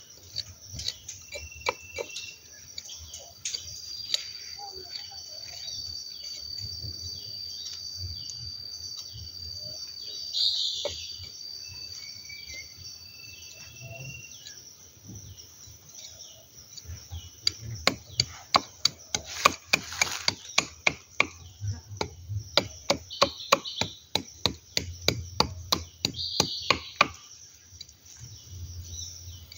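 Knife blade chopping and scraping rotten bark and wood out of a stem-canker wound on a durian trunk. It starts as light scraping and picking, then turns into a run of sharp, even chopping knocks, about two to three a second, through the second half. Insects buzz steadily and birds call now and then.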